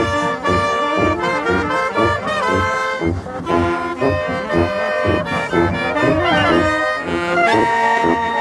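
Street brass band playing festive music: saxophones, trumpet, clarinet and sousaphone together, with a melody over a steady pulsing bass.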